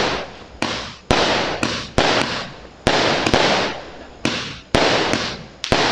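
Neptune multi-shot fireworks cake firing shot after shot, about two bangs a second, some in quick pairs. Each sharp bang is followed by a fading hiss as the stars burst.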